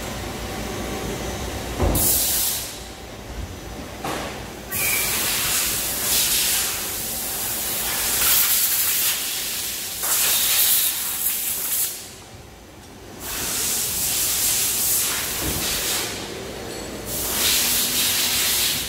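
Compressed-air blow gun hissing in several blasts of one to several seconds each, blowing chips and coolant off machined parts, over the steady hum of running CNC lathes.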